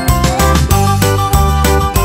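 Background music with a steady beat of about three strokes a second over a bass line.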